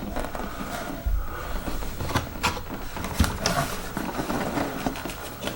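Handling noise of a plastic RC car body: scattered light clicks and taps with a few low thumps as it is moved and turned over.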